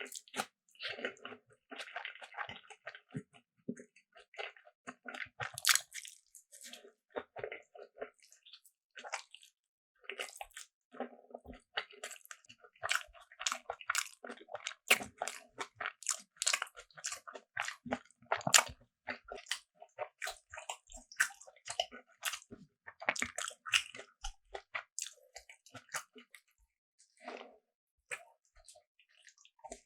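Close-miked eating: bites and chewing with crisp, crunchy clicks and wet squishing, in quick irregular runs that are thickest in the middle stretch.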